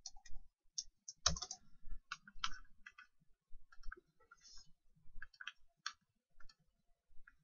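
Faint, irregular clicking of a computer mouse and keyboard while working in a spreadsheet.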